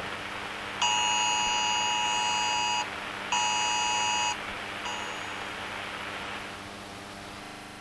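Emergency Alert System-style two-tone attention signal, a buzzy dual tone sounding in three pulses: about two seconds long, a one-second pulse, and a short blip. Steady rain hiss runs underneath.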